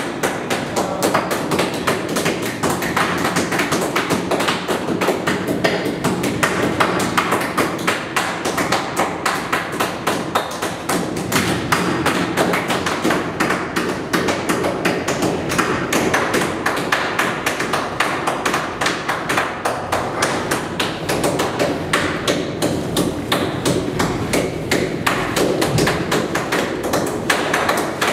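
Continuous clatter of many quick knocks and taps as raw meat chunks are tossed and mixed by hand on a stainless steel table.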